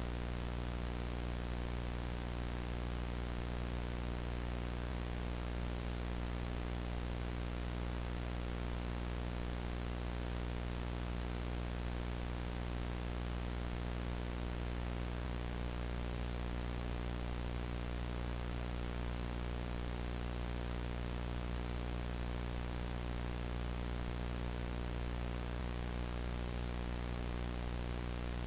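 VHS static: steady analog tape hiss with a low, buzzing hum beneath it, unchanging throughout.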